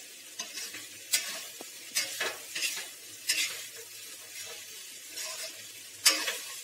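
Spoon stirring and tossing cooked poha (flattened rice) in a steel kadhai: irregular scrapes and knocks of the spoon against the pan, the sharpest about a second in and again near the end.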